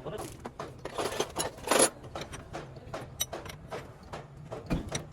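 Irregular metallic clicks and clunks, with a louder rattle just under two seconds in and a dull thump near the end.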